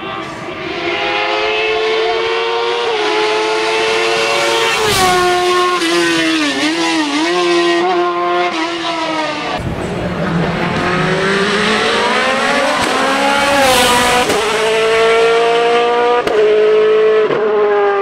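Hill-climb racing cars' engines at high revs, the pitch climbing through each gear and dropping back at the shifts. There is a wavering run of quick downshifts about six to seven seconds in, and a long rise in pitch from about ten seconds.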